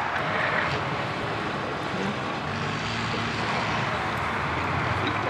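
T-55 tank's V12 diesel engine and tracks running steadily as the tank drives across sandy ground, a low engine drone under an even rumble of noise.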